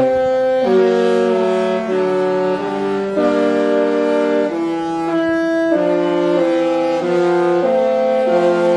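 The Disney Wish's musical ship horn playing a tune in loud sustained chords of several notes at once, the chord changing about every second.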